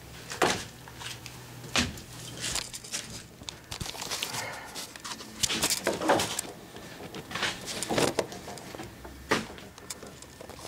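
Irregular knocks, scuffs and rustles of someone moving about and handling things in a small, cluttered boat cabin, over a faint low hum.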